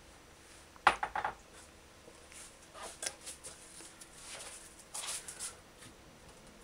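A metal saucepan clanks sharply about a second in, followed by a quick run of lighter knocks, then a few fainter clinks and taps as it is handled.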